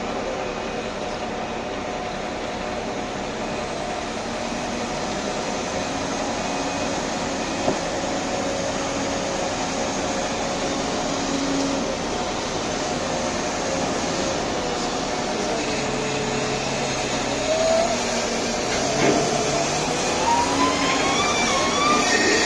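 Komatsu WA800 wheel loader's diesel engine and machinery running steadily, with rising whines near the end.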